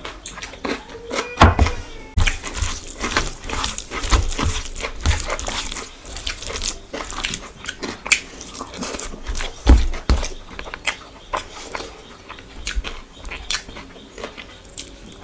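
Close-miked eating sounds: chewing with wet mouth smacks and many small clicks, and two heavier thumps about a second and a half in and about ten seconds in.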